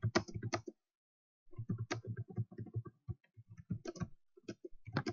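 Typing on a computer keyboard: a quick run of key clicks, a pause of under a second, then steady typing.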